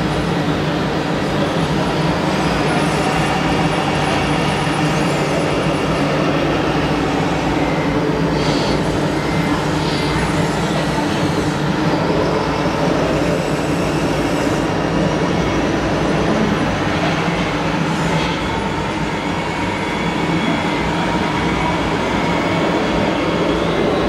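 Radio-controlled scale model trucks running: a steady mechanical hum with whines that slowly rise and fall in pitch.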